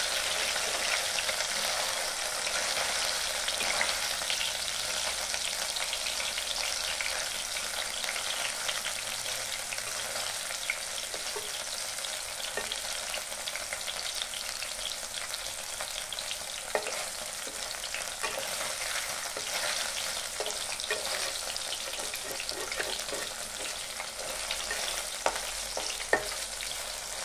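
Paneer cubes sizzling steadily as they shallow-fry in hot oil in a kadai, with a few sharp clicks of a metal spatula against the pan as they are turned, the sharpest near the end.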